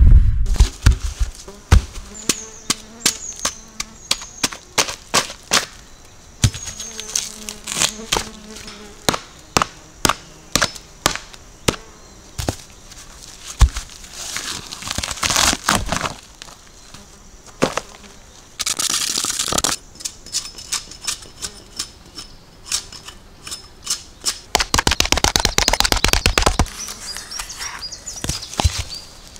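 Birch log dropped to the ground with a thud, then a run of sharp hatchet strikes, about two a second, chopping the rotten outer layer off the log. Twice there is a longer tearing burst as bark is pulled away. Flies buzz and birds chirp.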